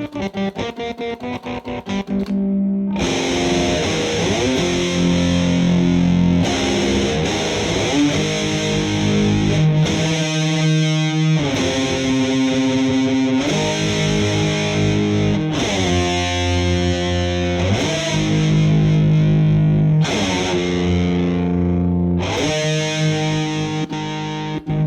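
Electric guitar played with heavy distortion through a telephone-handset guitar effect with a fuzz circuit, on its diode setting. It opens with about two seconds of fast repeated picked notes, then moves to held distorted notes and chords that change every second or two, with short breaks between phrases.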